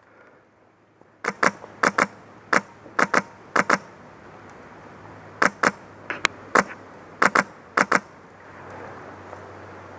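Airsoft gun firing single shots, about sixteen sharp cracks, mostly in quick pairs, starting about a second in and stopping near the end.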